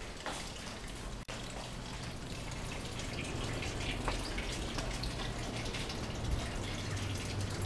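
Water dripping and trickling as a steady patter of small drops, over a low steady hum. The sound cuts out for an instant about a second in.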